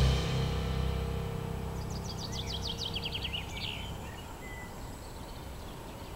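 A songbird sings one short trilled phrase of quick high notes stepping downward, about two seconds in, over a low steady hum. At the start, the ring of a note struck just before fades away.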